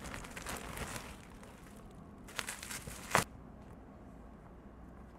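Plastic courier mailer bag crinkling and rustling as a boxed gimbal is pulled out of it, with a few louder crackles around two and a half seconds in and one sharp crackle a bit after three seconds.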